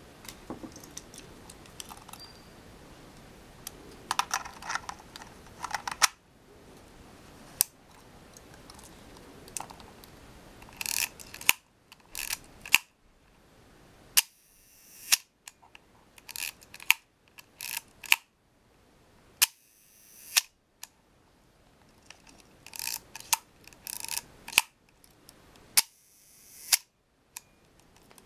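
Olympus Pen F half-frame SLR being fired again and again: about a dozen sharp shutter-and-mirror clicks. Short runs of fast ratcheting clicks from winding the film advance come between some of the releases. The shutter fires cleanly at the smallest aperture, as it should after the repair.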